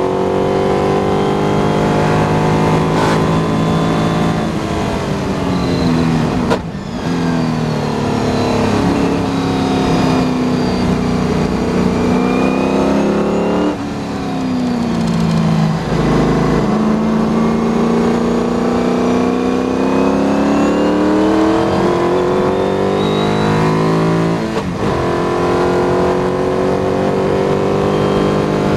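Onboard sound of a McLaren M10B Formula 5000's 5-litre V8 racing at full pace: the engine note climbs and falls over and over with throttle and gear changes, dropping under braking and rising again on the way out of corners, with brief breaks at the shifts.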